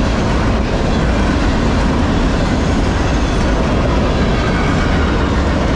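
Freight train cars rolling past: a steady, loud rumble of steel wheels on the rails.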